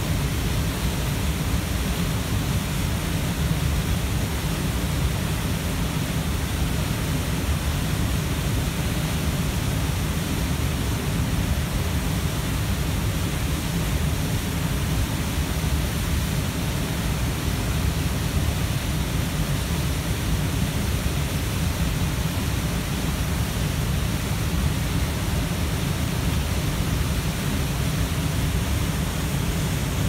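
A large waterfall pouring heavily over a rock ledge into a pool: a loud, steady, deep rush of falling water.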